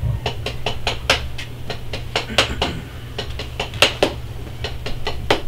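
A rapid, irregular clatter of small hard clicks and clinks, several a second, over a low steady hum.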